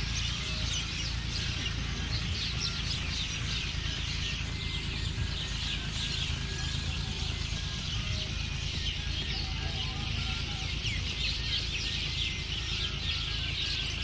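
Evening roost chorus: many birds chirping and chattering at once in a dense, unbroken din as a flock heads in to roost at dusk, over a low steady rumble.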